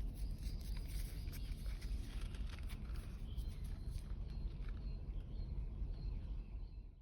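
Wind rumbling on the microphone in an open field, with scattered light clicks and rustles over the first four seconds. The sound cuts off abruptly at the end.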